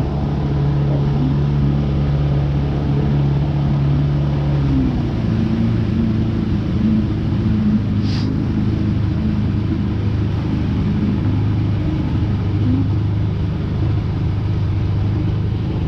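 Boat outboard motor running steadily at low speed, its pitch dropping to a lower, steady note about five seconds in as it slows.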